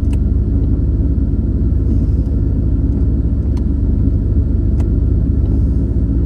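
A 1985 Corvette's V8 engine running as a steady low rumble, while its 700R4 automatic transmission is losing gears and failing to hold drive.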